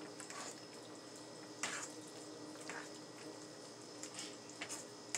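Quiet kitchen handling of a bowl of mashed potatoes: a few soft squishes and light taps, spaced a second or so apart, over a steady faint hum.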